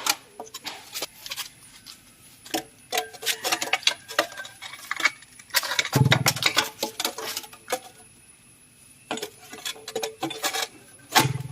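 Irregular metal clinking and knocking, with a heavier thump about six seconds in and another near the end.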